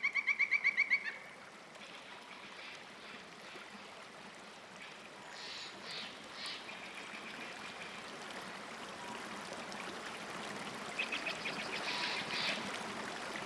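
Forest ambience: a steady rush of flowing water with scattered bird chirps. It opens with a rapid, pulsing animal call, about a dozen pulses a second, that breaks off about a second in.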